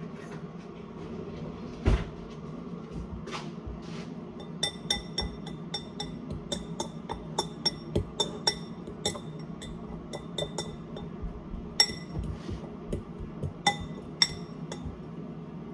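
A metal utensil clinking repeatedly against a bowl: a quick, irregular run of ringing taps, roughly two or three a second, starting a few seconds in after a single thump.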